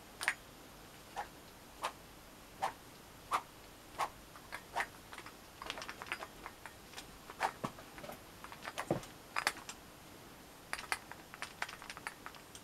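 Irregular light clicks and taps from a fencing foil being handled, its metal bell guard and blade knocking lightly. The clicks come one by one at first and grow more frequent from about halfway.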